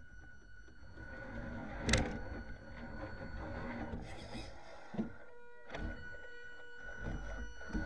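Tamiya CC-01 Unimog RC truck's small electric motor and gearbox whining steadily as it drives, heard from a camera inside the cab. Sharp knocks about two seconds in and again at five, and a rattle near the end, as the undamped rear axle and short chassis jolt over bumps.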